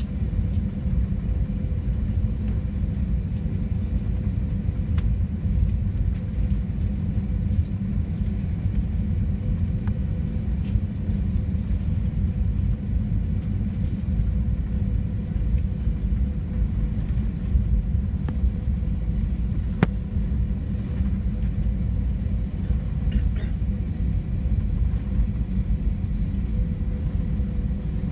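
Steady cabin rumble of an Airbus A321-200 taxiing, heard from inside the cabin: the engines at low taxi thrust and the airframe rumbling over the taxiway, with a faint steady hum above the rumble.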